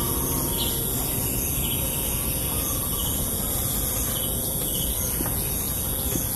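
Countryside ambience: a steady, high-pitched insect drone with a few faint, short bird chirps over an even, low background noise.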